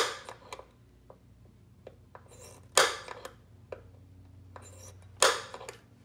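A center punch being struck against the car's firewall sheet metal: three sharp metallic strikes, about two and a half seconds apart, each ringing briefly, with a few light taps of tool handling between them.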